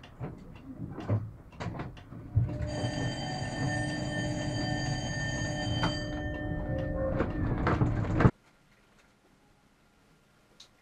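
Tram's warning bell ringing continuously for about six seconds over a low rumble, then cutting off abruptly. A few sharp clicks and knocks come before it.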